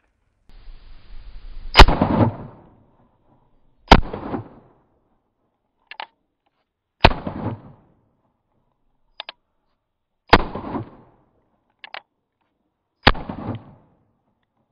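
Cimarron Model P single-action revolvers (Uberti-made Single Action Army reproductions) firing five shots two to three seconds apart, each with a short rumbling echo. Before several of the shots there is a small double click, the hammer being thumbed back to cock it.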